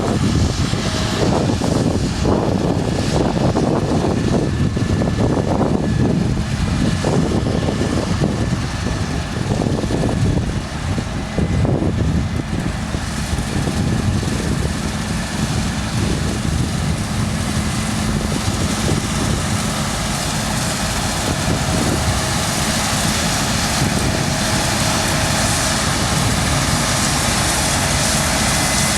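Claas Lexion 7600 combine harvester running under load as it cuts beans: a steady machine drone with a held hum. It is uneven and gusty for the first dozen seconds, then settles steady.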